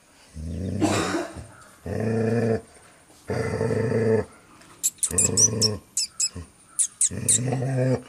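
A dog growling in four long, low growls with short pauses between them, the sound of an angry dog; a run of sharp clicks comes about halfway through.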